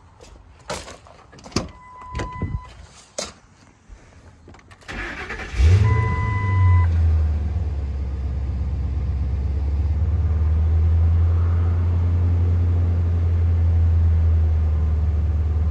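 Ford F-250 Super Duty pickup being started cold: a few clicks and clunks and an in-cab chime, then the starter cranks briefly about five seconds in and the engine catches with a burst and settles into a steady idle. The chime sounds again as it catches.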